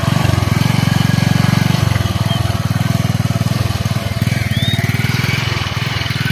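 Small motorcycle's engine running steadily as it is ridden slowly through shallow flood water, easing off a little about two seconds in and again near the end.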